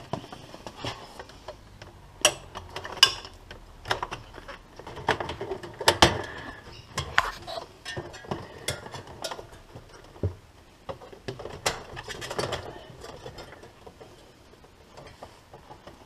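Plastic freezer parts being handled: the evaporator cover panel and its clips knocked, shifted and clicked by hand, giving scattered clicks and knocks with rustling in between, the sharpest at about 2, 3, 6 and 10 seconds in.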